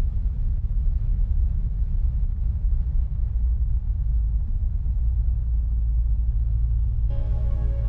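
Honda CB1100RS motorcycle riding at speed, heard as a steady deep rumble of engine, road and wind buffeting on the bike-mounted camera's microphone. Music comes in near the end.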